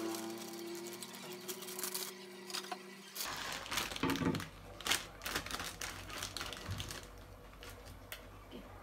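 Plastic wrapper of an instant-ramen packet crinkling and crackling as it is torn open and handled, a busy run of sharp crackles and clicks; near the end the dry noodle block is drawn out of the packet.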